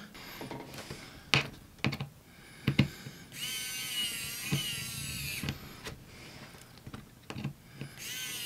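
Small electric screwdriver's motor whining as it backs out the laptop's bottom-cover screws. It runs for about two seconds, stops, and starts again near the end, with a few sharp clicks before the first run.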